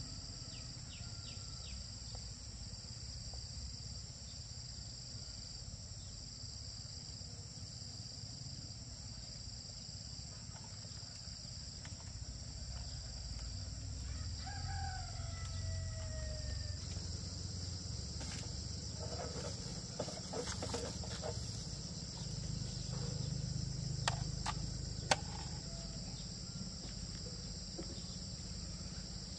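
A rooster crows once, a falling call of about two and a half seconds near the middle, over insects chirring steadily throughout. A few sharp knocks sound in the last third.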